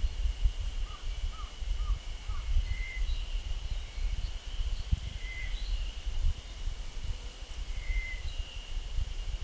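Forest ambience: a steady high-pitched insect drone, short bird calls every couple of seconds, and wind rumbling on the microphone.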